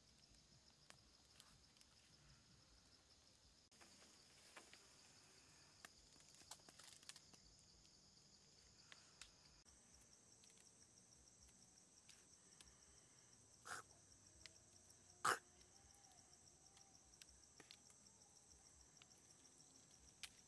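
Faint, steady high-pitched drone of forest insects, with scattered small clicks and two sharper cracks, the louder one about fifteen seconds in, as the shell of a cooked egg is cracked and peeled by hand.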